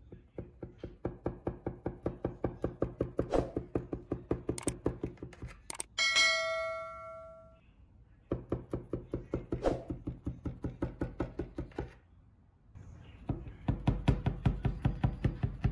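Serrated knife sawing back and forth through buttered layers of raw phyllo pastry in a metal baking tray: fast, even strokes, several a second, in three runs with short pauses between. About six seconds in, a single notification bell chime rings and fades over about a second and a half.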